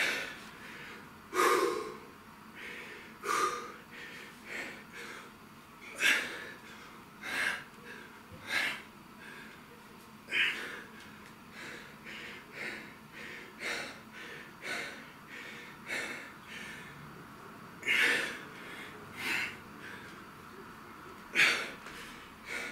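A man's hard, forceful breaths during a dumbbell lateral-raise set: short, sharp exhalations coming irregularly, roughly every one to two seconds, the breathing of effort with each lift.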